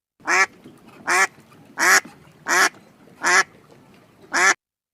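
Duck quacking: six short quacks at a steady pace, about one every three-quarters of a second.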